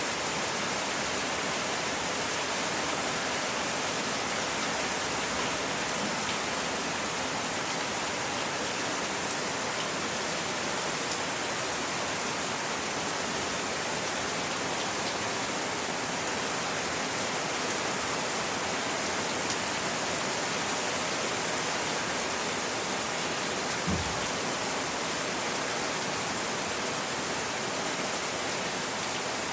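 Hail falling steadily: a dense, even patter of hailstones with no let-up. One short low thump comes near the end.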